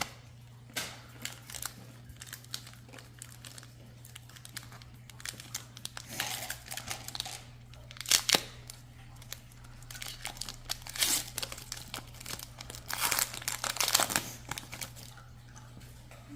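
Foil Pokémon booster pack wrappers being torn open and crinkled by hand, in irregular bursts of rustling, loudest about eight seconds in and again near the end. A steady low hum runs underneath.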